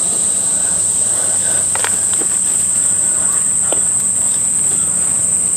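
Insect chorus, a steady high-pitched drone that does not change, with a few faint clicks in the middle.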